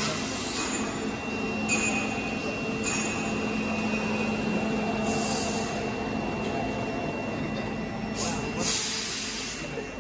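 Steady machine noise: a high whine over a low hum, broken by bursts of hiss, the loudest near the end.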